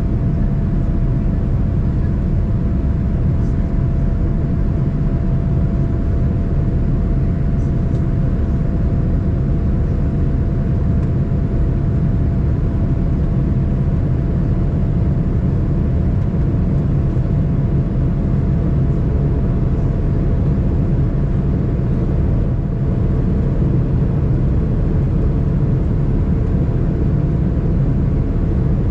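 Steady cabin noise inside a Boeing 787-9 airliner: a constant low rumble of the engines with a faint steady hum, unchanging throughout.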